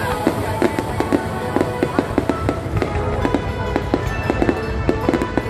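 Fireworks going off in a quick, irregular run of bangs and crackles, with music playing alongside.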